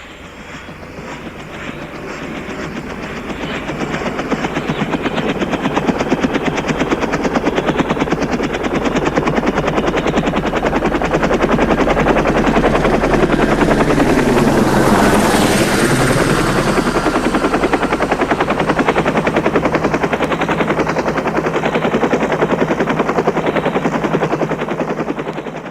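Helicopter rotor chopping rapidly over its engine noise, growing louder over the first several seconds, loudest about halfway through, then fading away near the end.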